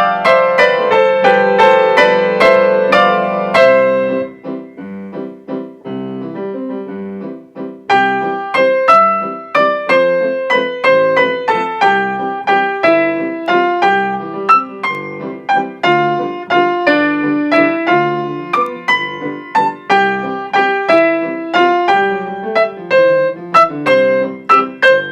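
Piano played four-hands as a duet, a lively tune of quick notes over chords. About four seconds in it drops to a softer, sparser passage, and comes back louder and fuller after about eight seconds.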